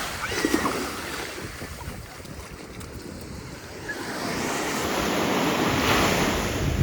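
Ocean surf washing onto the beach, the rush swelling louder from about four seconds in, with wind buffeting the microphone.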